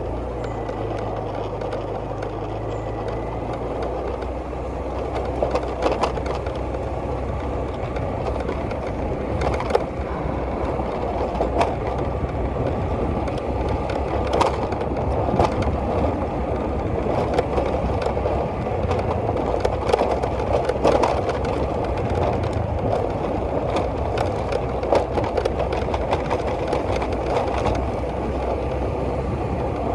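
A small engine runs steadily while the vehicle moves, with frequent knocks and rattles over it.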